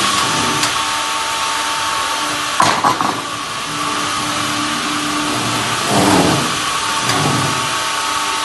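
Log band sawmill and its hydraulic log carriage running with a steady whirring hum. A few louder clattering knocks come about three seconds in and again about six seconds in.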